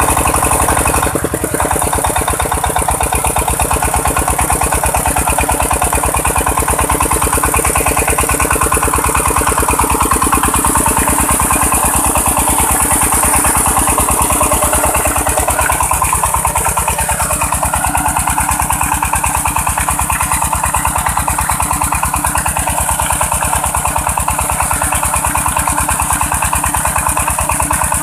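A 1000 cc single-cylinder engine running steadily as it drives a water pump, its firing pulses rapid and even, over the hiss of water spraying from the pump outlet. A rising sweep in its tone comes just past halfway.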